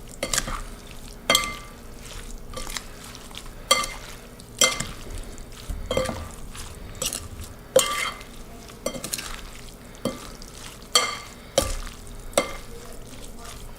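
A metal utensil stirring and mixing in a metal container, clinking against its side about once a second at an uneven pace, each clink ringing briefly.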